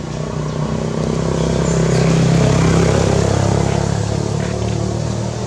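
A motor vehicle's engine passing by: a steady hum that grows louder to a peak about two to three seconds in, then fades.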